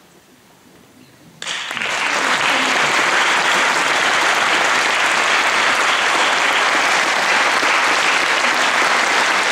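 Audience applauding, breaking out suddenly about a second and a half in after a brief lull and then holding steady: the welcome for the violin soloist walking on stage.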